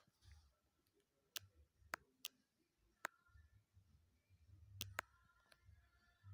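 Faint, sharp clicks from a smartphone being handled, about seven of them at uneven gaps, while its media volume is turned down. A low hum sits underneath.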